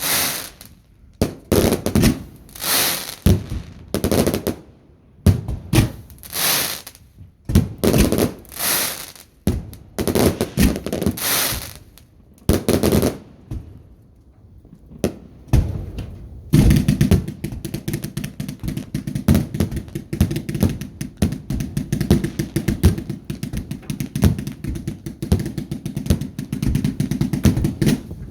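Fireworks going off: a run of separate bangs, each with a hissing tail, about one a second. About two-thirds of the way through it gives way to a dense, rapid-fire crackling barrage.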